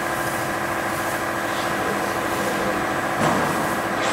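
Steady hum of workshop machinery with several held tones, and a short knock about three seconds in.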